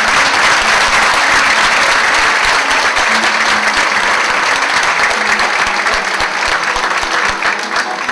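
Theatre audience applauding steadily at the close of a carnival dance group's performance.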